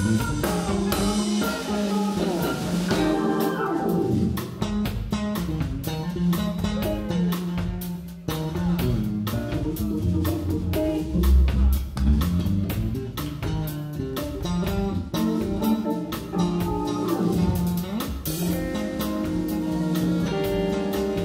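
Live band playing a soul-jazz groove: electric guitar to the fore over electric bass, keyboard and drum kit.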